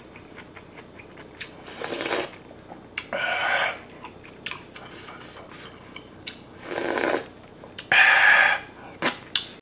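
A man eating spicy kimchi jjigae from a spoon: four loud slurps of the broth a few seconds apart, with small wet chewing and spoon clicks between them. The last and loudest comes with a breathy gasp at the heat.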